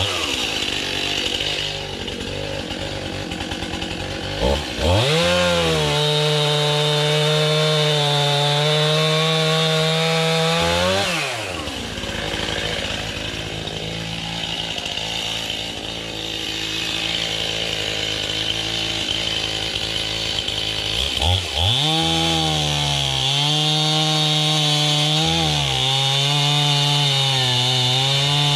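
Gas chainsaw idling, then revved to high speed twice. The first run is held for about six seconds before it drops back to idle; after a long idle it revs up again and runs high, with a few brief dips in pitch.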